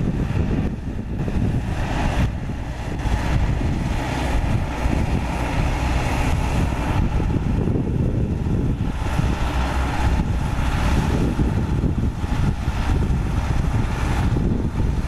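CAT D5K2 XL crawler dozer's four-cylinder diesel engine running steadily under load as the dozer pushes a blade full of dirt up a slope, a continuous low drone.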